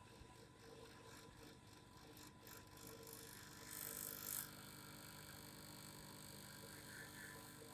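Faint, steady vibrating hum, with a brief louder hiss about four seconds in.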